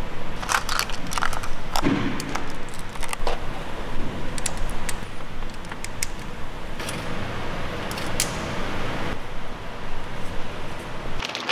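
Small steel valvetrain parts clicking and clinking as hydraulic lash adjusters and rocker arms are handled by hand and set into an aluminium BMW cylinder head. The clicks come irregularly, a few close together, over a steady workshop background noise.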